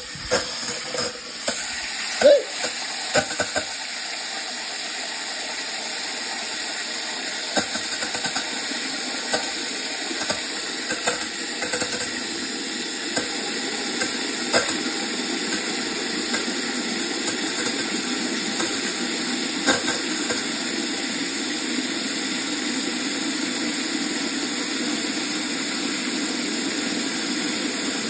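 Garden-hose spray nozzle spraying water into an open porcelain toilet tank, filling it by hand: a steady hiss of spray splashing into the tank. A few knocks and clicks come in the first few seconds.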